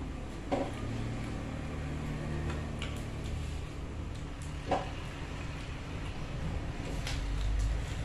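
Quiet eating sounds: a person chewing and handling fresh vegetables and food by hand, with a few short clicks, the clearest about half a second in and just before five seconds, over a steady low background hum.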